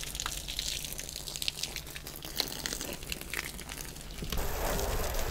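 Water from a garden hose splashing and trickling over a pickup's painted body, with a steady low hum underneath. It grows louder about four seconds in.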